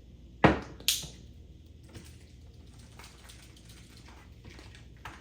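Two sharp plastic clicks about half a second apart, followed by a few faint ticks and rustles as plastic toy packaging is handled.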